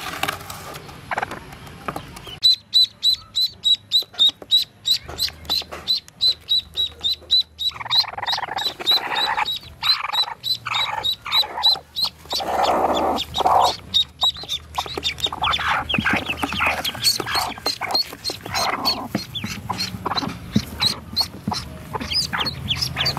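Hatchlings peeping: short, high peeps repeated rapidly and evenly. From about eight seconds in, a nesting hen gives lower, louder clucking calls while a hand reaches under her.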